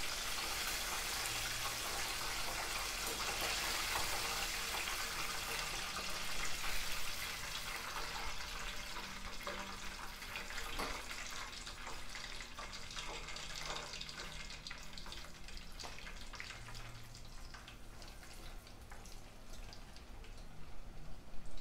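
Hot oil in a pot sizzling and crackling as chicken deep-fries, a steady hiss that is loudest at first and slowly dies down; a few sharp clicks of metal tongs later on.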